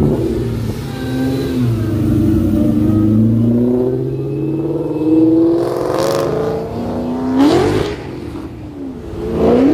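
A car engine revving: its pitch sinks and climbs slowly for several seconds, then goes up in three quick, sharp revs in the second half.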